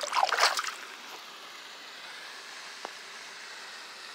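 Brief splash as a small bass is released by hand into the pond water, lasting under a second, followed by a faint steady hiss.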